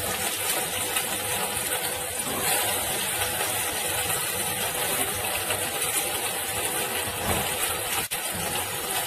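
Cut okra (ladies' finger) sizzling steadily in hot oil in a kadai as it starts to fry.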